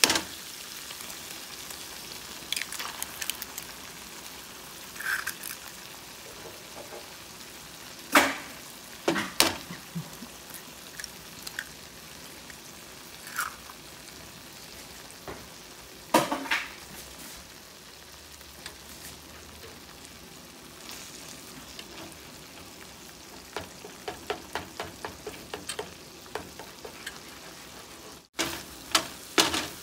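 Sardines in red sauce with spinach and eggs frying in a pan, a steady sizzle. Sharp knocks about 8 and 9 seconds in come as eggs are cracked into the pan, and a quick run of spatula taps against the pan near the end comes as the eggs are stirred in.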